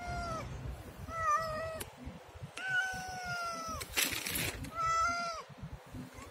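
A cat meowing four times, the third meow long and drawn out with a falling end. A short burst of hiss-like noise comes about four seconds in.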